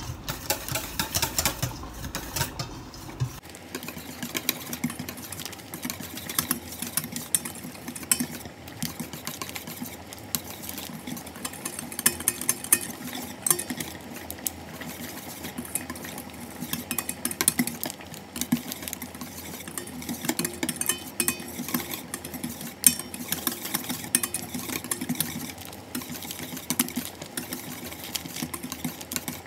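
Wire balloon whisk beating a thin egg-and-flour batter in a stainless steel bowl: a rapid, steady clatter of the wires against the metal sides.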